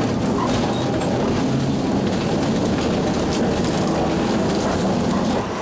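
Vintage wooden streetcar running along its track, heard from inside the car: a steady rumble of wheels on rail with light clicking.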